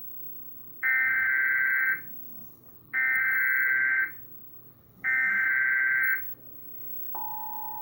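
Emergency Alert System SAME header for a tornado warning: three loud bursts of shrill warbling data tones, each about a second long and a second apart. About a second after the third burst, the steady two-tone EAS attention signal starts, quieter than the bursts.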